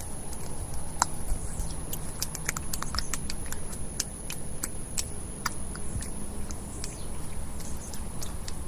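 Wet mud being squished and played with, giving irregular sticky clicks and small pops.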